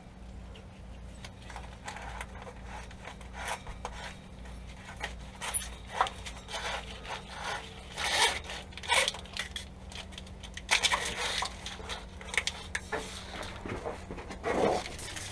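Irregular rubbing, scraping and clicking of gloved hands handling a wiring cable along a truck's frame rail, with a cluster of louder clicks and scrapes a little past the middle. A faint steady low hum runs underneath.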